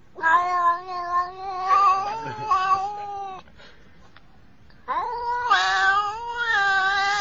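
Domestic cat making two long, drawn-out meows, each with a pitch that wavers up and down. The first lasts about three seconds. The second starts about five seconds in and is still going at the end.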